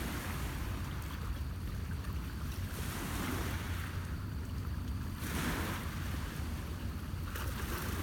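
Small lake waves washing against a rocky shore, a soft rush of water every two to three seconds over a steady low rumble.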